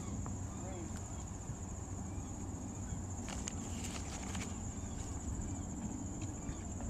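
A plastic bag crinkling as a hand handles it right by the microphone, in a cluster of sharp rustles between about three and four and a half seconds in. Underneath runs a steady low rumble of wind on the microphone and a constant high-pitched whine.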